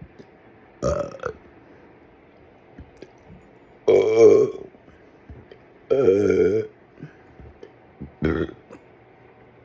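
A person burping four times: a short burp about a second in, a long, loud one with a wavering pitch around four seconds in, another long one about two seconds later, and a short one near the end.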